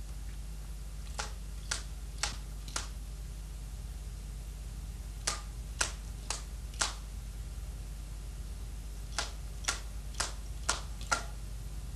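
Sharp slaps of hands catching a spinning color guard rifle, about two a second in groups of four, with pauses between groups where the rifle swings through its extensions.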